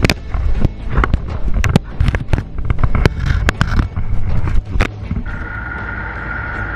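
A crocodile's jaws clamped on a camera, its teeth knocking and scraping against the housing in a rapid run of sharp clicks and knocks over a low rumble. About five seconds in this cuts off and a steady vehicle hum with a thin high whine takes over.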